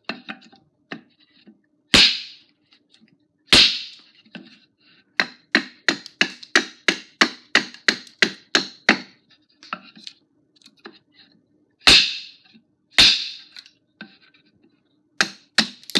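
Forged tomahawk chopping into an upright 2x4, a string of sharp wood-chopping cracks: a few hard blows and, in between, a quick run of lighter strikes at about three a second.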